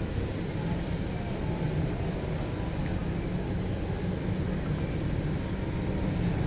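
Steady low rumble of outdoor background noise, like road traffic, with no clear single event.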